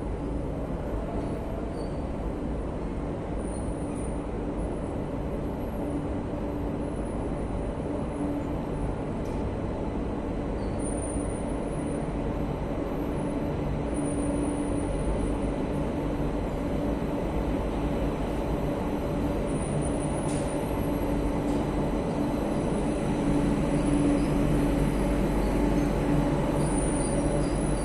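Metro de Madrid train, units 6110 and 6104 coupled, running with a steady rumble and hum, with brief high wheel squeals now and then. It grows gradually louder in the second half.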